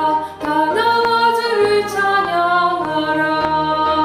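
Soprano voice singing a hymn phrase over piano accompaniment. The notes change quickly at first, then settle into one long held note about three seconds in, while the piano carries on underneath.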